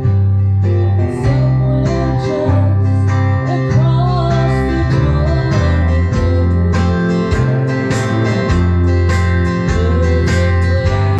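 A small band playing live: electric guitar over a drum kit, with a low bass line moving under regular drum hits.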